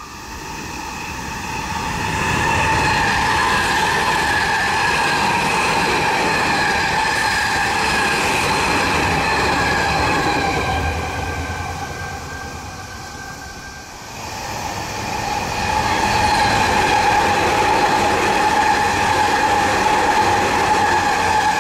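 Electric commuter trains passing at speed, one after another: a rush of wheels on rail with a steady high-pitched motor whine. The sound swells, fades, then swells again about two-thirds of the way through as the second train goes by.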